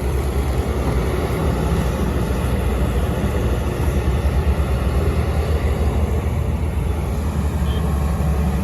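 Heavy diesel engines of road-construction vehicles running steadily, a deep even drone with no breaks.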